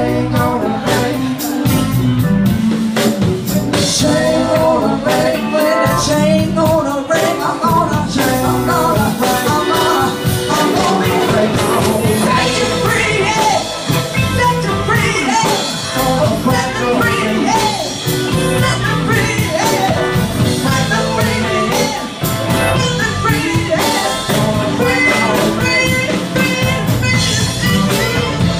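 Live rock band playing: a woman sings lead over electric guitar, bass guitar and a drum kit.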